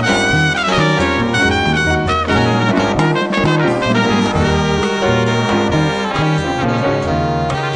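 Live jazz octet playing a brass-led arrangement of a 19th-century hymn: trumpet, saxophone and trombone in the lead over a tuba bass line and piano.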